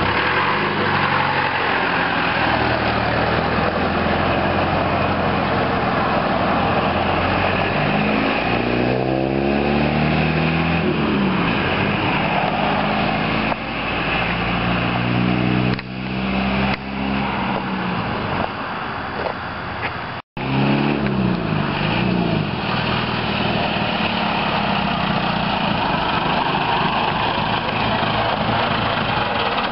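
Ford F-150 pickup with a diesel tractor-engine conversion running and pulling away, its engine note climbing and dropping back several times. The sound cuts out for an instant about two-thirds of the way through.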